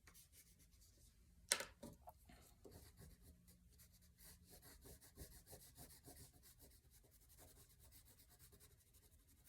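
Faint, scratchy strokes of coloring on paper, with one louder tap about one and a half seconds in.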